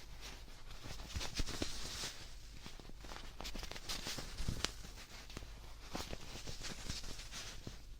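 Close-miked handling sounds: irregular soft crackles, scratches and taps over a steady hiss.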